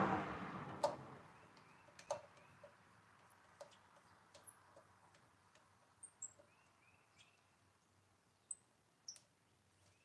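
Screwdriver working the screws of a deadbolt, giving sparse small metallic clicks and ticks, roughly one a second. A broad rushing noise fades out in the first second, and faint short chirps sound now and then.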